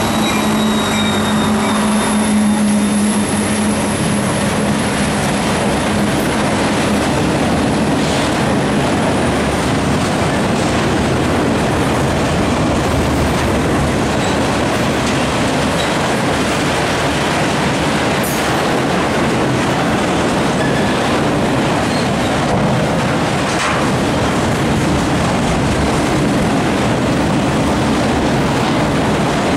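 Diesel freight locomotives running as they pass close by, with a low engine drone and a high whine that fade over the first several seconds. Then comes the steady rumble and clatter of loaded flatcars rolling over the rails, with occasional faint wheel squeaks.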